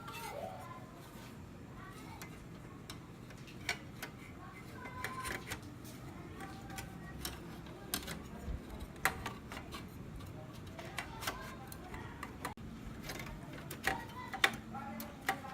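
Irregular clicks, taps and knocks of computer parts being handled and fitted into a desktop computer case as the last component goes back in.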